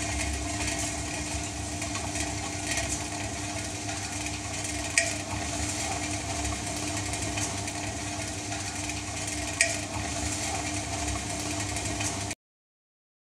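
Table-top stone wet grinder running with rice in it: two stone rollers turning in the stainless steel drum, a steady hum over a constant rattle. There are sharp clicks about five and ten seconds in, and the sound cuts off suddenly near the end.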